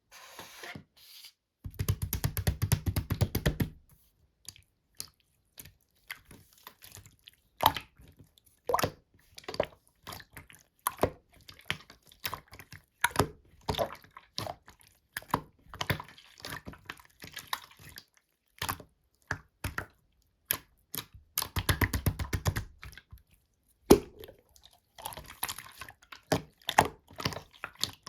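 Slime being pressed, poked and stretched by hand, making sticky pops and clicks, with two bursts of rapid crackling, one about two seconds in and one just past twenty seconds.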